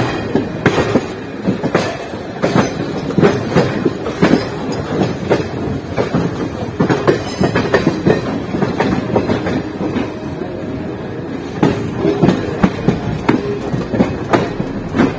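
Passenger train's coach wheels clattering over rail joints and points, with many irregular sharp clacks over a steady rolling rumble. Heard from the open doorway of an ICF coach.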